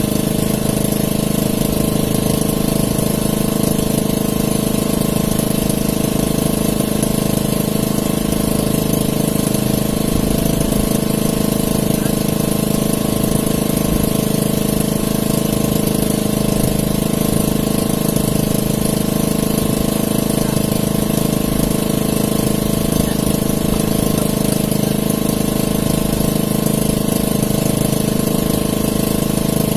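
A fishing boat's engine running steadily at an even, unchanging pace.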